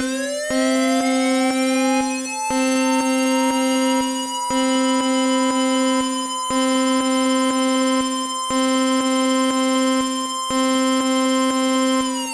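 Synthesized emergency alert attention tone: a low tone pulsing on and off about every two seconds under a steady higher tone, while a siren-like whine rises and levels off at a high pitch a few seconds in, then starts to fall near the end.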